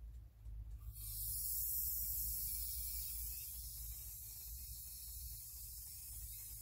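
Compressed-air aerosol generator hissing as it blows a mite-treatment mist into a beehive through its entrance hole. The hiss starts about a second in and slowly weakens.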